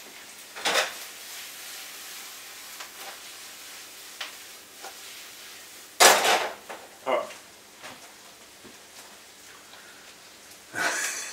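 Diced potato frying in olive oil in a pan on the stove, a steady faint sizzle. A sharp clatter about six seconds in and a few lighter knocks of utensils and kitchenware.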